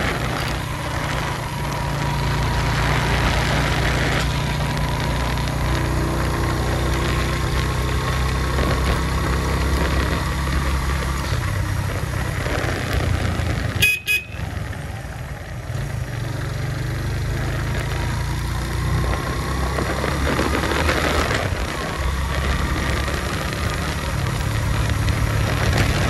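Suzuki GS150 motorcycle's single-cylinder four-stroke engine running steadily while riding, with a thin high whine that comes and goes. A single sharp click comes about halfway through, followed by a brief drop in level.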